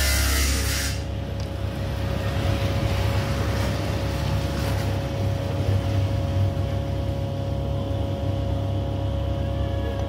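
A steady low machine hum with a constant mid-pitched tone running underneath, like a motor running in the background.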